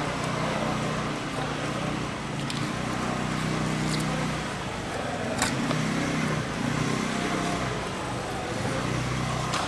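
A steady low engine-like hum that swells and fades, with a few sharp knocks of a knife against the fish and cutting board.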